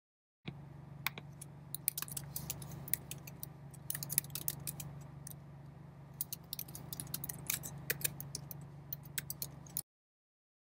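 Typing on a computer keyboard: irregular key clicks, some in quick runs, over a low steady hum.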